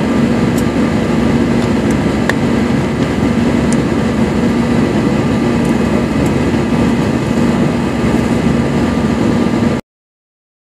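Jet airliner cabin noise during the climb after take-off, heard from a window seat over the wing: the turbofan engines run steadily with a constant low hum. The sound cuts off abruptly near the end.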